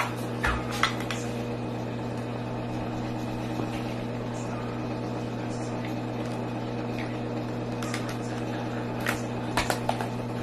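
A steady low hum with a few short, light clicks and knocks in the first second and again near the end.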